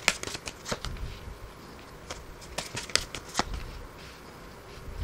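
A tarot card deck being handled and cards laid down on a table: two quick clusters of crisp card snaps and slaps, one at the start and one about three seconds in.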